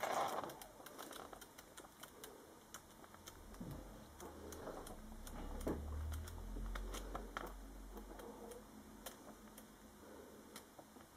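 Faint paper handling as the pages of a comic book are leafed through: light rustles and scattered small ticks of turning pages.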